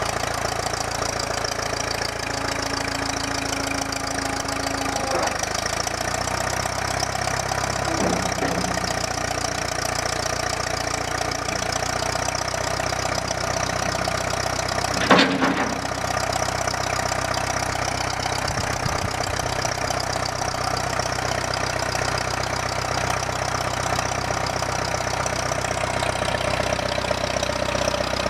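Engine of a 1960 Case 440L backhoe idling steadily, with one sharp clank about halfway through.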